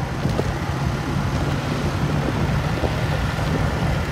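Steady engine hum with road and wind noise, heard from a vehicle moving along a road.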